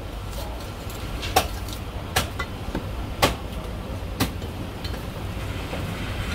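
A heavy cleaver chopping marinated goose on a thick round wooden chopping block: four sharp chops about a second apart, with lighter taps between. Under the chops runs a steady low hum.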